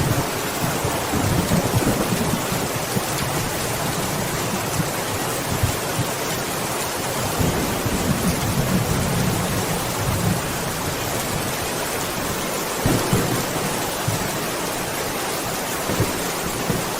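Steady rain falling, with low rolling thunder rumbling at the start and again about eight seconds in.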